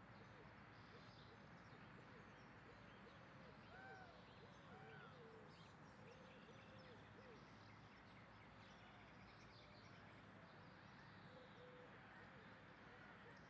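Very faint outdoor ambience: a steady low hiss with distant birds chirping, a run of short calls in the middle.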